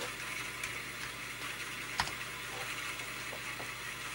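Commodore 1571 floppy drive with its Mitsumi mechanism running while it loads a program from disk: a steady whirring hiss, with a sharp click at the start and another about two seconds in.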